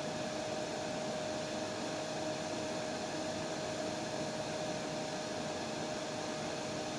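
Hair dryer running steadily: an even rush of blown air with a constant motor hum.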